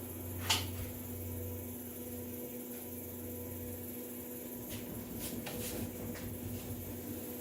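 Steady electrical hum with one sharp click about half a second in and a few faint clicks and taps later on.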